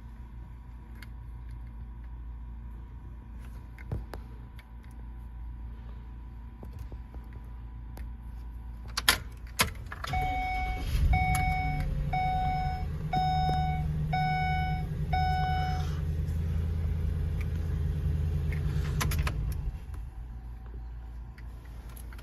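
Key clicks at the ignition lock cylinder of a 2012 Ford E-250, then the van's warning chime beeping six times, about one beep a second. Under the chime a louder low steady hum comes in and cuts off several seconds after the beeps end.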